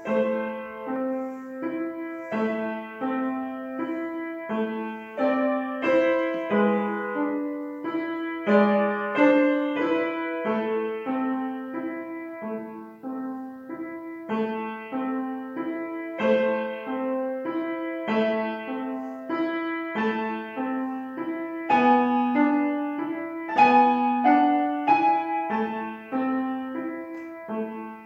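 Solo piano playing a slow lyrical melody over a steadily repeating lower accompaniment figure.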